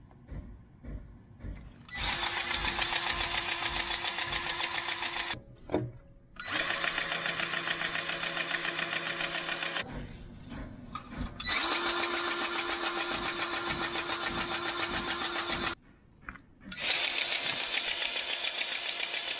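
Battery-powered grease gun running in four bursts of a few seconds each, with short pauses between. Its small motor and pump pulse rapidly as grease is pumped into the grease fittings.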